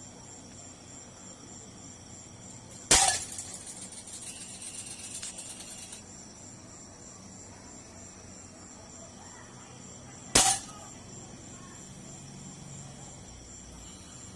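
Two airsoft gun shots about seven seconds apart, each a single sharp crack; a rough hissing noise trails the first for about three seconds. Crickets chirp steadily throughout.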